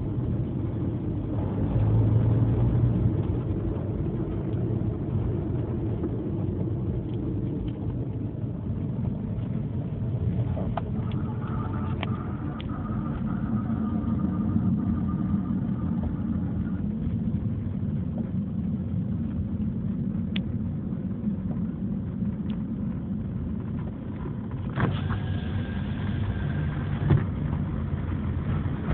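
Fiat Palio ELX 1.4 car running, a steady low rumble with a few sharp clicks and one louder knock near the end. The car has an unexplained noise at the front passenger-side wheel that several mechanics could not trace.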